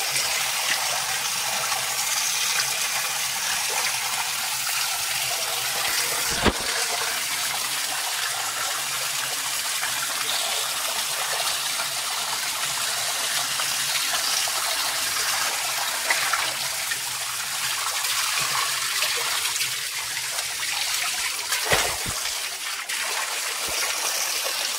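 Spring water gushing steadily from stone spouts and splashing into a stone tank, a continuous rushing hiss. Two brief sharp knocks cut through it, one about a quarter of the way in and one near the end.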